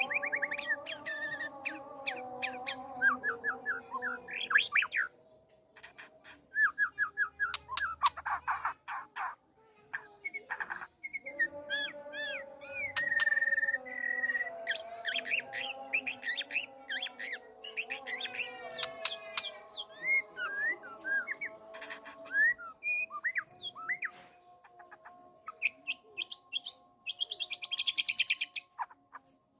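White-rumped shama (murai batu) singing a long, varied song of rapid trills, whistles and chirps, mixing in songs learned from other birds. There are brief pauses about five and nine seconds in.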